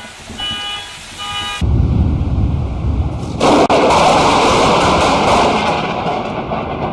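Close thunder from a nearby lightning strike: a sudden loud rumble about a second and a half in, a sharper crack about two seconds later, and long rumbling after it. Before the thunder there are a few short beeping tones.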